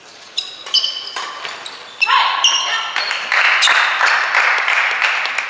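Court shoes squeaking on the indoor sports floor and sharp racket-on-shuttlecock hits as a badminton rally ends. About two seconds in there is a shout, then a few seconds of clapping that slowly fades.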